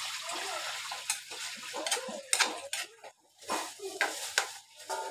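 Spatula stirring and scraping meat in a simmering liquid in an aluminium wok, with a few sharp scrapes against the pan in the second half.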